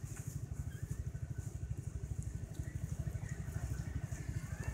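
Motorcycle engine idling steadily: a fast, even low putter.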